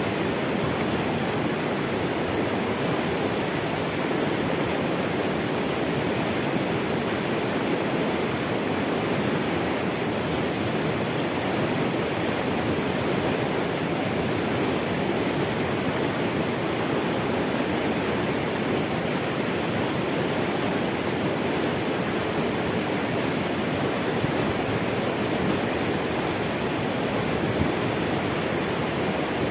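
Running water rushing steadily, an even unbroken sound that is fullest in the low-middle range.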